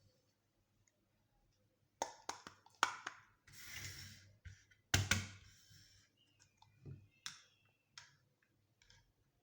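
Small plastic toy kitchen pieces clicking and tapping as they are handled and set in place, with a short rustle in the middle and one sharper click about five seconds in. Scattered lighter ticks follow; the first two seconds are nearly quiet.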